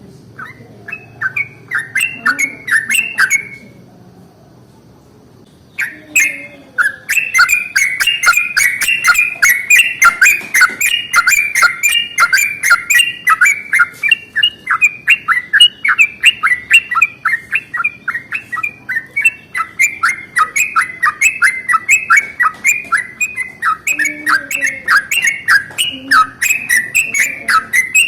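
Yellow-vented bulbul (trucukan) singing its long rolling song: a short burst of quick chirping notes, a pause of about two seconds, then an unbroken run of rapid bubbling notes, several a second.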